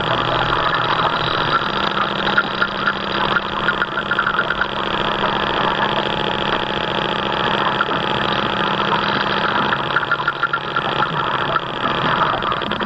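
Radio-controlled model boat's drive motor running steadily under way, picked up by a camera on its own deck.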